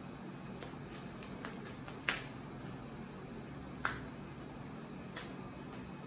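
Sleeved trading cards being handled and laid down on a playmat: three sharp snaps, the two loudest about two and four seconds in and a fainter one near the end, with a few soft ticks of cards shifting, over a steady low hum.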